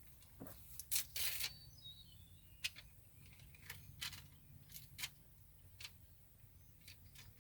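Scattered light clicks and a brief rustle of small parts being handled, from a tyre plug kit as a sticky rubber repair plug is worked into the insertion needle.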